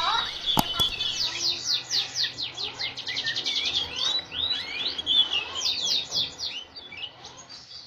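Male canary in breeding condition singing: a fast rolling trill of rapid, evenly repeated down-sweeping notes about a second in, then varied chirps and short phrases that fade near the end. A single sharp click comes just after the start.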